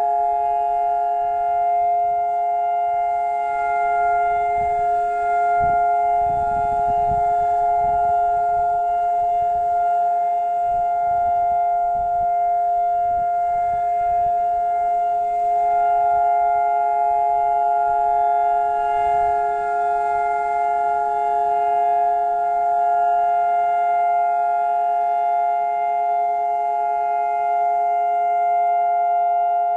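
Israeli civil-defence siren sounding one long, steady tone that neither rises nor falls. This is the Holocaust Remembrance Day memorial siren, the national signal to stand still in silence.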